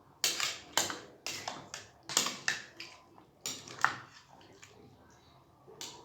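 A kitchen utensil clattering against cookware: about ten sharp, ringing knocks over the first four seconds, then one more near the end.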